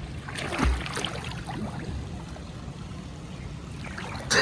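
Swimming-pool water sloshing and gurgling around a waterproof phone's microphone, with a steady low rumble and louder splashy moments about half a second in and again near the end.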